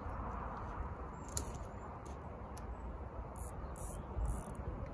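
Steady low rushing background noise, with a few short rustles about a second and a half in and again near four seconds.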